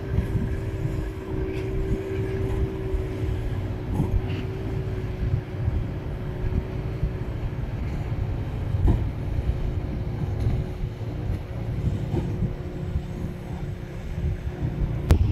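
Boat engine running steadily: a low rumble with a constant hum.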